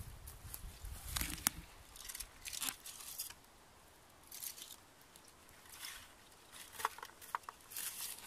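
Irregular short rustles and crunches of low forest undergrowth, bilberry shrubs and dry twigs, being brushed and stepped through, with a few sharp clicks.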